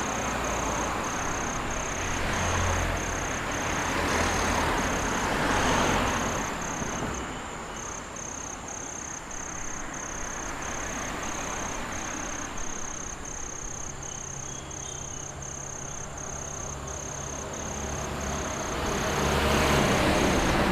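Road traffic: vehicles pass one after another, engine and tyre noise swelling and fading, with a quieter lull in the middle and another vehicle coming up near the end. A high, evenly pulsing tone of about three pulses a second runs underneath.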